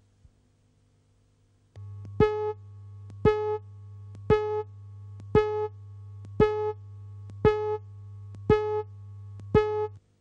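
Television line-up test signal played with colour bars: a steady low buzz and faint tone start suddenly, with a short pitched beep repeating about once a second, eight times, then everything cuts off near the end.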